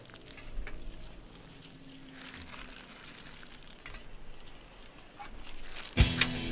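Soft wet squelching and rustling as marinated chicken pieces are pushed by plastic-gloved hands onto the metal spikes of a homemade kebab spit. Music with drums starts suddenly near the end.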